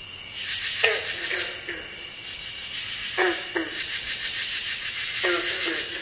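Night ambience: a steady, rapidly pulsing high insect chorus. A short animal call stands out about a second in, then comes in pairs about three and five seconds in.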